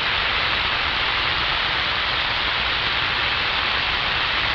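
Steady radio static: an even hiss from a CB radio receiver with no transmission coming through.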